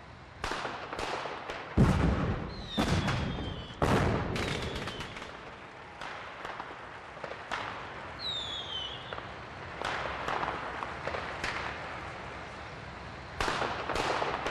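Fireworks bursting: a string of booms and sharp cracks. The three heaviest come about two, three and four seconds in, and lighter scattered bangs follow, with a couple of faint short falling whistles among them.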